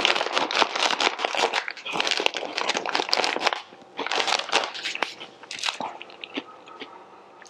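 Plastic-foil chip bag crinkling as it is handled and turned over, in a long run of dense crackling, a short break, a second run, and then only light handling near the end.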